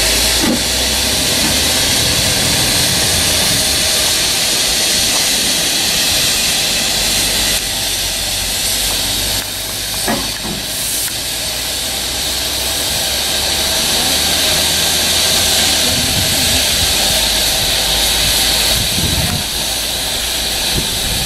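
Ex-British Army 0-6-0 saddle tank steam locomotive standing with steam up, hissing loudly and steadily.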